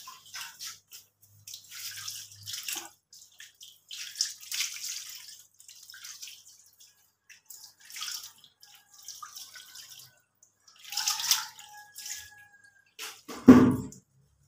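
Water poured from a scoop over a wet puppy, splashing onto the tiled floor in several separate pours. Near the end comes a short, louder, lower sound.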